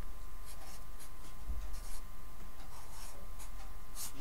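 Felt-tip marker writing on paper: a string of short scratching strokes, the loudest near the end.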